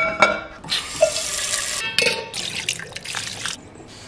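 Kitchen tap running into a sink in two short spells of about a second each, with a few light clicks at the start.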